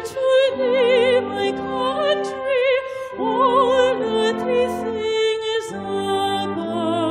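Classically trained mezzo-soprano voice singing long held notes with wide vibrato into a microphone, over sustained instrumental accompaniment, with a short break about three seconds in.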